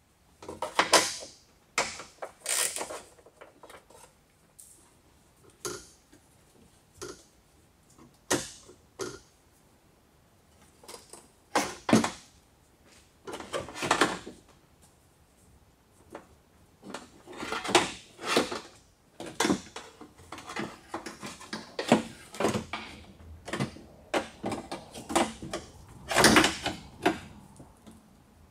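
Metal window regulator being handled and worked out of a car door's inner panel: irregular knocks, clacks and short scrapes of metal against the door's sheet metal.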